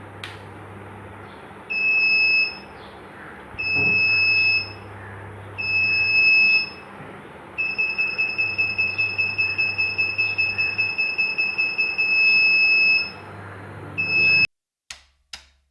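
Piezo buzzer of a homemade Arduino vibration-sensor bike alarm sounding a high, steady beep: three beeps of about a second each, then a longer run of about five seconds pulsing quickly, then one short beep. This is the alarm going off, set off by vibration of the bike.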